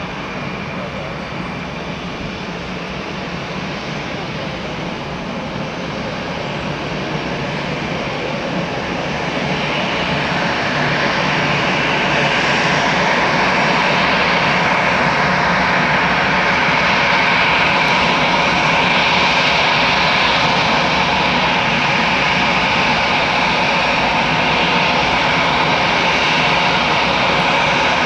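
Airbus A319 airliner's twin jet engines running at taxi power: a steady rushing whine. It grows louder from about ten seconds in, as the aircraft swings round nose-on with its engine intakes facing this way.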